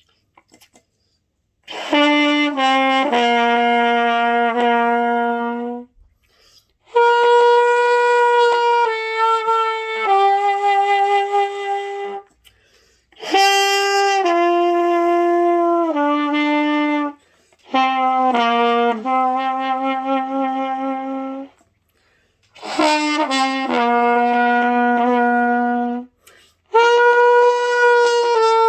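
Trumpet played by a beginner: a slow hymn melody of held notes in six phrases, with a short breath pause between each. The high notes of the tune are hard for him.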